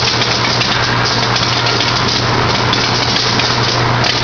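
WECO cranberry sorting machine running: a steady hum under a loud, dense rushing noise with fine ticking through it, unchanging throughout.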